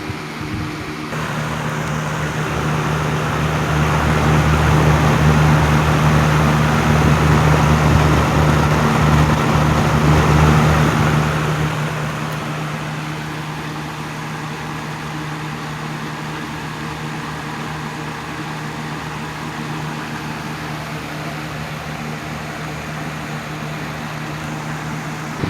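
Patton CA-1284 12-inch rotary box fan running: a steady motor hum under a rush of air that swells for several seconds, then eases off. It runs smoothly with no rattle or vibration, its motor bearings freshly oiled.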